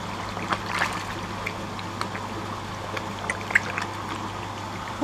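A crowd of koi churning at the surface of a tank, water splashing with scattered sharp little splashes. A steady low hum sits beneath it.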